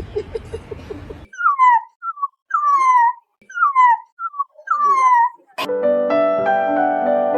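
A dog whining: four high cries, each falling in pitch, about a second apart. Piano music starts after the fourth cry.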